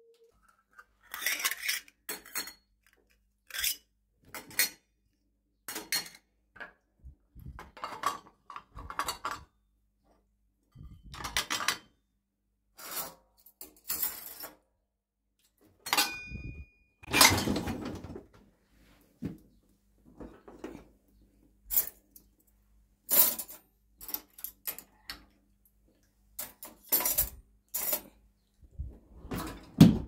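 Glasses, mugs, steel pots and ceramic bowls clinking and clattering as they are set into the wire racks of a dishwasher, in irregular separate clatters a second or two apart.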